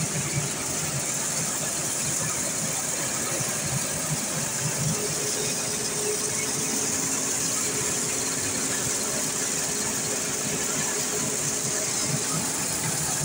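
Small rice milling machine running steadily: a constant mechanical drone with a steady hiss over it as milled rice pours from its chute into a tin can.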